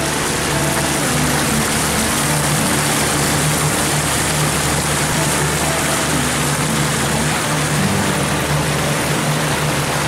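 Motorboat engine running steadily under way, with a continuous rushing hiss of wind and water.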